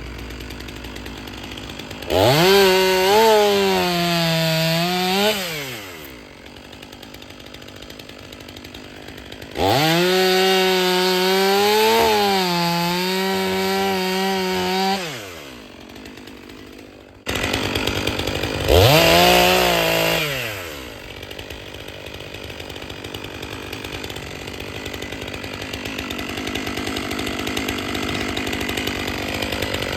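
Stihl MS 500i fuel-injected two-stroke chainsaw bucking firewood logs: it is revved to full throttle three times for cuts lasting several seconds each, dropping back to idle in between, and it revs up again at the end.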